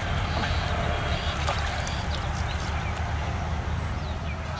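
A steady low rumble with light splashing of water as a hooked fish thrashes at the surface of a small pond.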